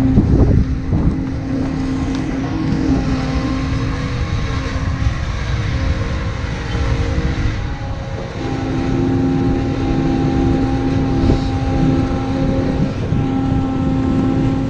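Diesel engine of a large farm machine running steadily as it travels, a constant hum with a steady drone. Its note dips and breaks briefly about eight seconds in, then runs on stronger.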